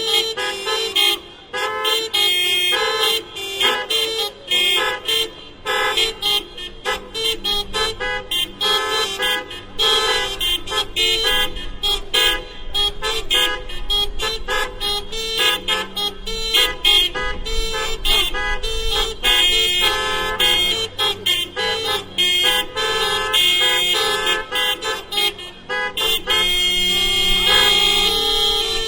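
Many car horns hooting and honking in an interlocking rhythmic hocket, short blasts from different cars alternating rapidly at different pitches. Near the end several horns sound together for longer.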